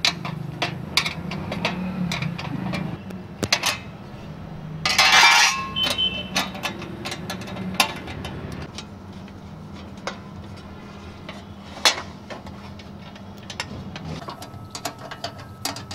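Steel spanners clicking and clinking against the fender bolts of a power weeder as the bolts are undone: irregular sharp metal ticks, with one brief louder noisy burst about five seconds in.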